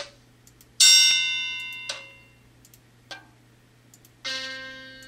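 Two recorded bell-like instrument notes played by a computer memory game as tiles are turned, one about a second in and one near the end, each struck and ringing down over a second or so. Faint clicks come between them.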